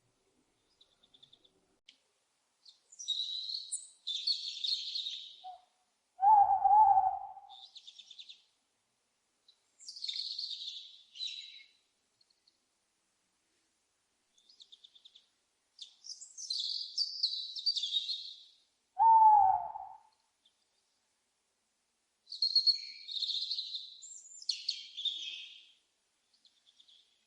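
An owl hooting twice, each hoot a single call of about a second, some thirteen seconds apart, and louder than everything else. Between and around the hoots, songbirds chirp and twitter in short high-pitched bursts.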